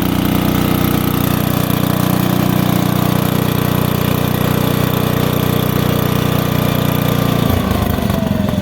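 Lincoln Weldanpower 225 engine-driven welder running loud and steady at high speed, then dropping to low idle about seven and a half seconds in, with a falling whine as it slows. It settles to a smooth low idle without backfiring; its idle screws have been freshly adjusted.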